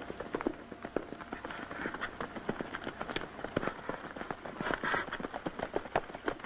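Horses galloping: a fast, irregular patter of hoofbeats, several a second.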